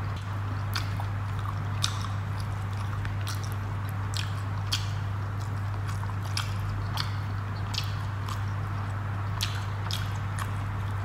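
Close-up eating sounds of a person eating fish curry and rice by hand: wet chewing and mouth clicks, irregular, about one or two a second. A steady low hum runs underneath.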